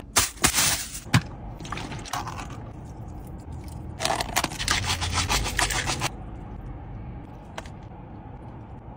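Aluminium foil crinkling as it is pulled off a takeaway food tray, then a thin plastic container lid crackling as it is pried open from about four seconds in.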